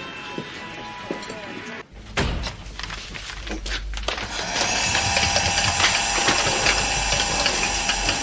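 About two seconds of quiet room sound, then knocks and clatters, then a vacuum cleaner running with a steady whine from about halfway through.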